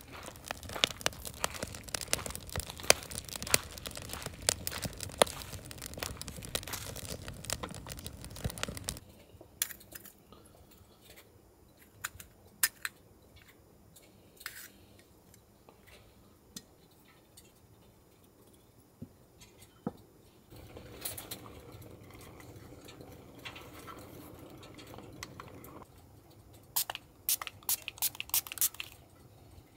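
Crunching steps on gravelly ground for about the first nine seconds, then sparse light clicks and knocks of small objects being handled on a camp table, with a quick cluster of clicks near the end.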